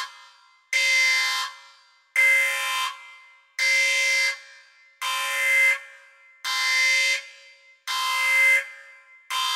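A loud alarm-like horn tone blasting over and over, about once every second and a half. Each blast starts sharply, holds for under a second and fades out in a short echoing tail.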